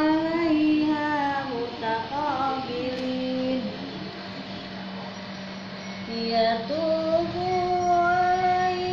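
Background music: a song sung by a female or child voice, with long held notes that step and glide like a melody over a steady low drone.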